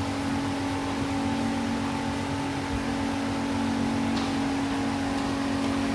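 A steady machine hum with a constant low tone that does not change.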